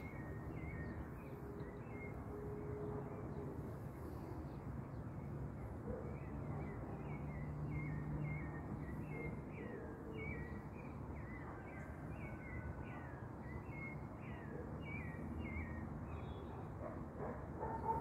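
Steady outdoor background noise with a small animal's short, falling chirps repeating about twice a second, stopping shortly before the end.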